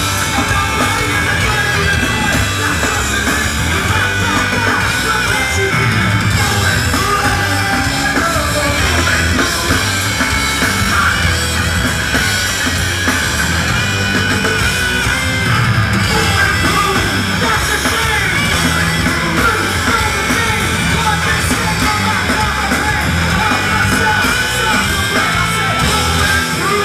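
Rap-metal band playing live, loud: drums and electric guitar under a shouted lead vocal.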